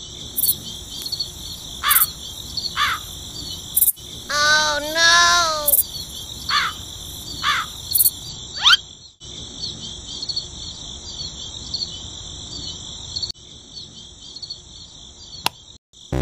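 Crickets chirping steadily, with a few short falling bird calls and a longer wavering call about four to five seconds in.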